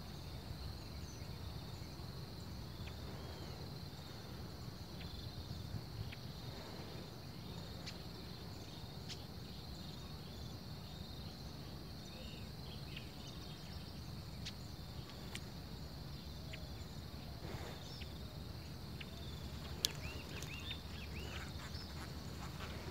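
Riverside ambience: a steady high insect buzz over a low rumble, with a few short bird chirps near the end and a single sharp click about twenty seconds in.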